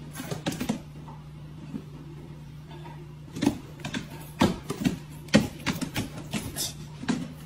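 A cat and a large dog tussling on a hardwood floor: scattered sharp taps and knocks, several from about three and a half seconds in, over a steady low hum.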